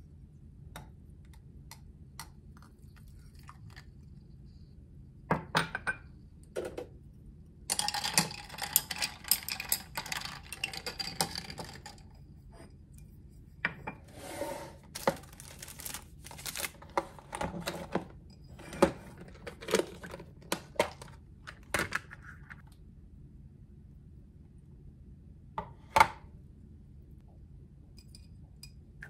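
Kitchen handling sounds: glassware and ice cubes clinking, with a longer run of dense clinking and rattling several seconds in. Later come light knocks of a glass food container and a small ceramic plate on the counter, a fork against the plate, and one sharp knock near the end.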